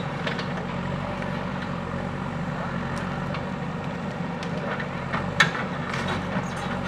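JCB 3DX backhoe loader's diesel engine running steadily, with scattered short knocks and one sharp crack about five and a half seconds in.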